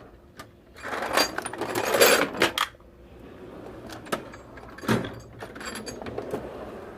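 Metal hand tools clinking and rattling as they are rummaged through in search of wire strippers, with a dense clatter from about a second in and another sharp clatter near five seconds.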